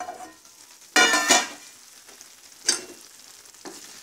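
A spatula stirring and scraping cooked brinjal, tomato and gongura in a kadai just taken off the flame, over a steady faint sizzle. The loudest scrape comes about a second in, with shorter ones near the three-second mark.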